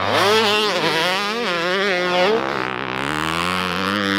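Dirt bike engine revving hard on a motocross track, its pitch rising and falling over and over with the throttle, then holding steadier in the second half.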